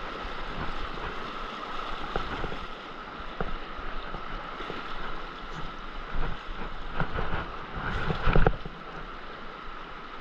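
Fast, shallow creek water rushing over rocks close to the microphone, a steady wash of noise. A few sudden splashes or knocks cut through it, the loudest about eight seconds in.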